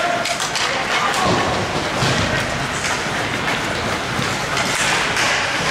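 Ice hockey play in a rink: skate blades scraping and carving the ice, with sticks clacking on the puck and ice in quick irregular knocks.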